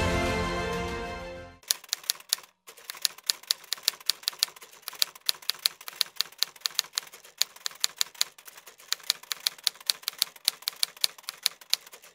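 Music fading out over the first second and a half, then typewriter keys clacking in a quick, uneven run of keystrokes.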